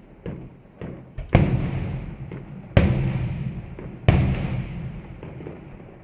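Fireworks exploding: three loud bangs about a second and a half apart, each trailing off in a long echoing rumble, with smaller sharp pops in between.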